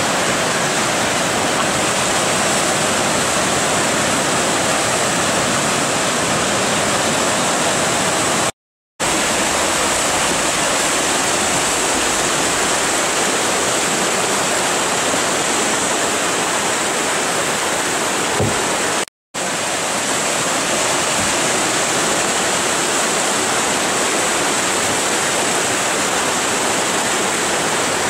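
Steady rushing of whitewater rapids, broken twice by a moment of complete silence.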